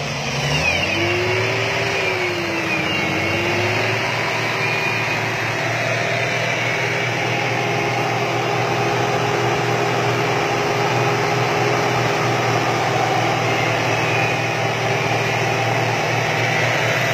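Four-wheel-drive engine running at high, steady revs under load while pulling a stuck off-road vehicle out of mud on a line. The pitch rises and dips a couple of times in the first few seconds, then holds.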